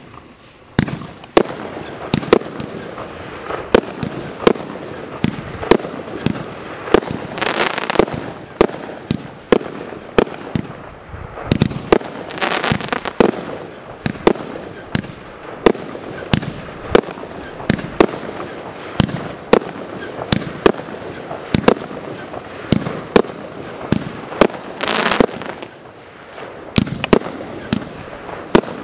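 PGE Cake I consumer firework cake firing shot after shot: a steady run of sharp bangs, somewhat under two a second, with a few longer rushes of noise of about a second each.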